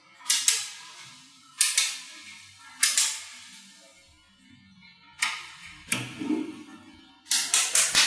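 Small magnetic balls snapping together in sharp clicks as cubes of them are joined into longer bars: single snaps every second or so, then a quick run of four near the end.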